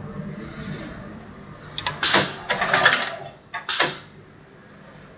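UZU automatic placket sewing machine running a cycle: a low steady hum, then three loud bursts of hiss-like noise about two seconds in, each under half a second long, before it settles back to a quieter hum.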